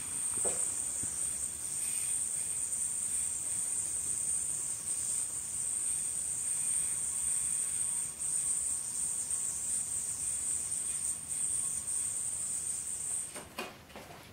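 Spinning yoyo whirring on its string: a steady high hiss that holds through a long string-trick combo and stops near the end as the yoyo is caught, followed by a few light clicks.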